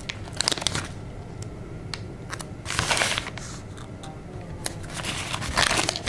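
Sticker sheet and paper being handled: light clicks in the first second, then short papery rustles about three seconds in and again near the end, as a sticker is peeled from its glossy backing and pressed down onto paper with a finger.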